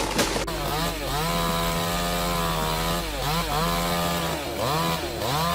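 Chainsaw engine running at high revs, cutting. Its pitch sags and recovers about three times as the chain loads up in the wood.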